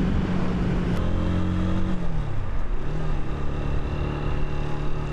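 Kymco Quannon's single-cylinder engine running under way, heard from the rider's seat over road and wind noise. About two seconds in, its pitch falls and settles at a steady lower note.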